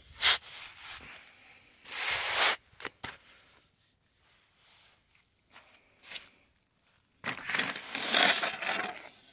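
Sand being scooped up and loaded into a container: several separate gritty scraping and pouring bursts, the longest near the end.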